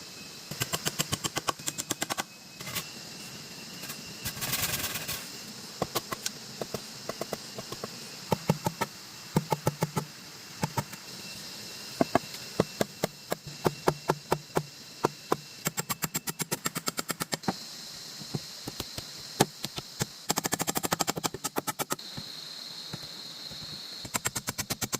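Repeated runs of sharp clicks or taps, several a second, starting and stopping throughout, over a steady high-pitched hum.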